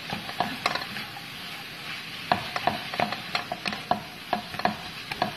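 A spatula stirring chopped shallots, shredded chicken and spices in a hot pan: irregular scraping knocks against the pan over a soft sizzle, with a brief lull about a second in.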